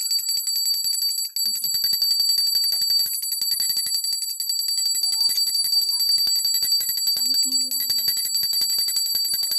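Small puja hand bell rung rapidly and without pause: a bright, high ringing made of many quick strikes, as at the camphor aarti.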